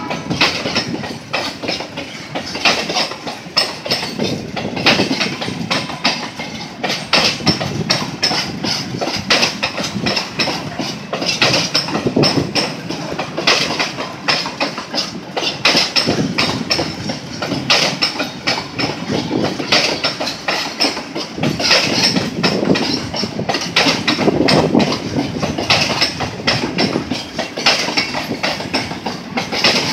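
Freight train of oil tank cars rolling past, steel wheels clacking over the rail joints in groups about every two seconds as each car's trucks cross.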